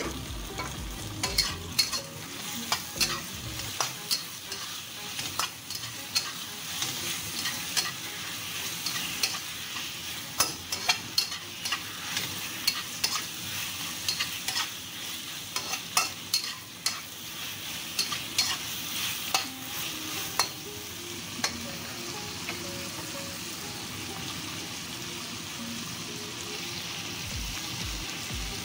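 Chopped tomato, chilies, shallots, garlic and ginger sizzling as they are stir-fried in a wok, with a spatula clicking and scraping against the pan. The spatula strikes come thick and fast for the first twenty seconds or so; after that it is mostly a steady sizzle.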